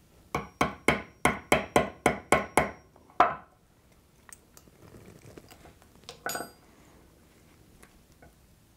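Claw hammer tapping a rivet used as a punch to drive a link pin out of a 415 motorcycle chain, because the chain breaker tool's pin would not reach all the way through. About ten quick strikes come in the first two and a half seconds, then one harder strike, followed by faint handling of the chain and a short metallic ring about six seconds in.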